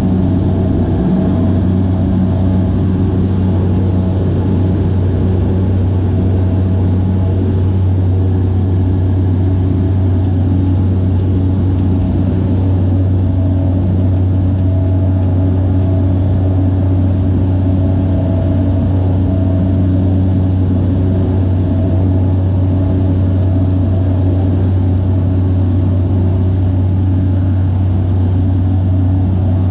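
Cessna Caravan's Pratt & Whitney PT6A turboprop and propeller heard from inside the cabin during takeoff and climb-out: a loud, steady deep drone with a strong low propeller hum that holds constant throughout.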